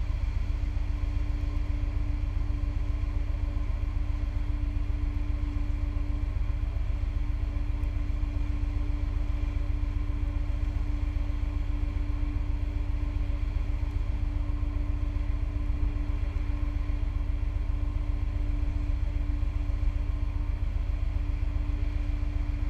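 Steady low rumble with a constant droning hum and no sudden sounds: machinery noise of a ship under way at sea.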